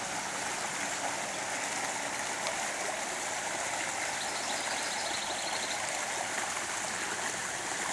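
Small creek rushing steadily over rocks in shallow riffles, a constant even wash of flowing water.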